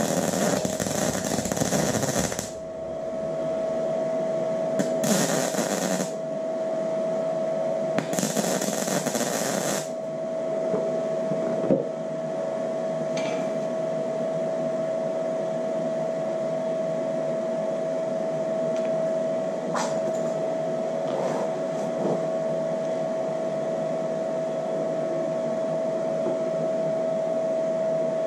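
Wire-feed welding torch arcing on thin tinplate in short test runs while the welder's voltage is being set: a crackling burst at the start, a short one about five seconds in and another about eight seconds in. Between the runs a steady high hum carries on.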